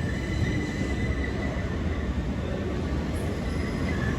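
Electric passenger train at the platform, a steady rumble with a faint high whine above it.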